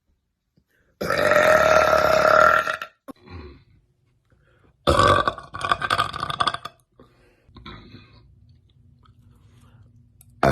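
A woman burping loudly twice: one long, drawn-out burp about a second in, lasting about two seconds, and another about halfway through, breaking up toward its end.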